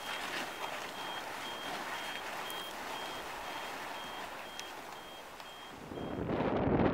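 A high electronic beep repeating evenly, about twice a second, over a steady outdoor hiss. The beeping stops just before the end, when louder wind noise comes in.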